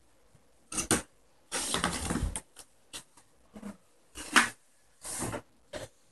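Cardboard graphics-card retail box being handled and opened: the inner box slides out of its printed outer sleeve in several separate scrapes, rubs and taps, the longest lasting about a second.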